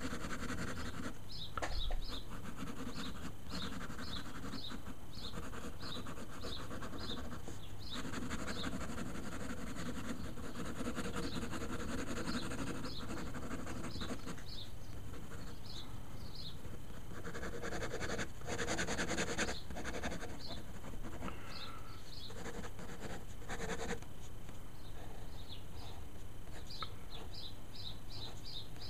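Fine-liner ink pen scratching on paper in stretches of quick hatching strokes, with a small bird chirping repeatedly, often in quick pairs, in the background.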